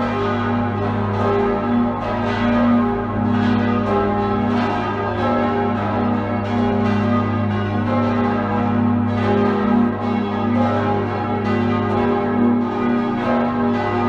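Full peal of six swinging church bells, tuned G-sharp, B, D-sharp, F-sharp, G-sharp and E, ringing together in a continuous stream of overlapping strikes.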